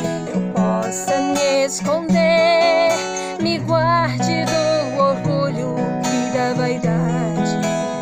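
A woman singing a Portuguese worship song, gliding between notes and holding them with vibrato, over strummed acoustic guitar accompaniment.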